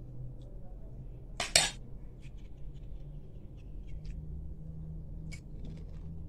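A sharp crunch about a second and a half in, then scattered faint crunching clicks: a crisp panipuri shell being cracked and then chewed.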